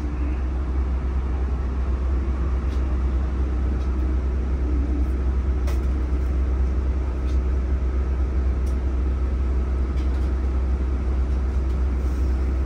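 Steady low rumble inside a coach bus, from its running engine and cabin noise, with a few faint ticks.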